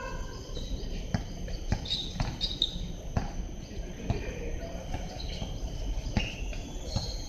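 A basketball bouncing on an outdoor hard court: irregular thuds of dribbling about once or twice a second, mixed with players' footfalls. Faint high chirping of birds or insects sits behind it.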